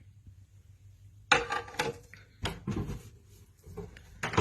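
A few sharp knocks and clatters, starting about a second in, as a plate is set inside a microwave oven and the door is shut.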